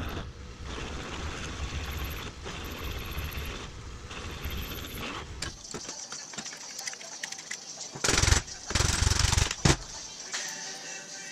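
Drill press running as a twist drill bores through a steel bushing for the first five seconds or so. About eight seconds in come loud, harsh bursts of metal noise as the bushing is squeezed into the leaf spring's eye in a bench vise.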